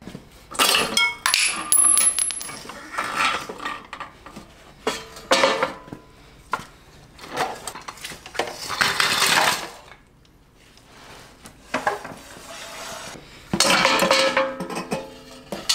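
Metal clanking and rattling, with sharp ringing knocks and a longer rough scrape about eight seconds in, as a wrecked Honda CBR1000RR's front forks and wheel are wrenched off the frame and set onto a stand among loose parts and tools.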